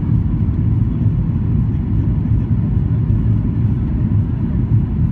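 Steady low rumble of a Boeing 737-800's CFM56 engines and rushing airflow, heard inside the passenger cabin during the descent to landing with the flaps extended.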